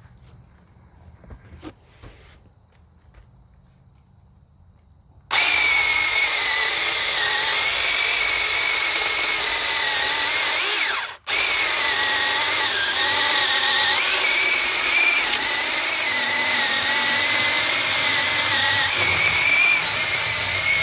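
Battery-powered 21-volt mini chainsaw with a 6-inch bar cutting through a thick log. The motor starts about five seconds in and runs with a high whine, its pitch wavering as the chain bites. It stops for a split second about halfway, then runs again until near the end.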